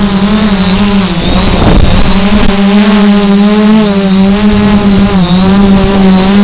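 Multirotor drone's motors and propellers running with a steady, loud hum and a high whine, wavering slightly in pitch. A rush of noise briefly covers the hum about a second in.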